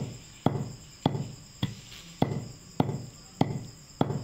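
Wooden pestle pounding mustard oil cake in a stone mortar: a steady beat of thuds, a little under two a second, seven strikes, crushing the oil cake to a fine powder.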